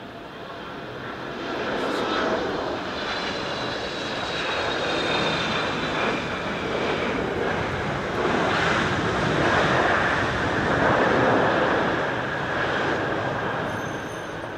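Jet airliner on landing, its engine noise swelling in and staying loud. Whining engine tones glide downward early on.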